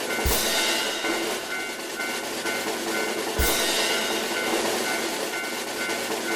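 Cartoon level-crossing sound effects: a railway crossing bell ringing in a quick, even two-tone pattern over the clatter of a train running past, with a sudden rush of noise and a low thud near the start and again about three seconds later.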